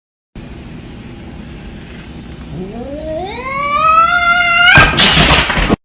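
A cat's long yowl that starts low, rises steeply in pitch and grows louder, then breaks into a loud harsh screech for about a second before cutting off suddenly.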